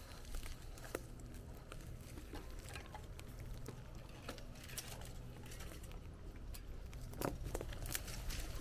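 Bicycle rolling along a path: irregular clicks and crackles over a low steady rumble.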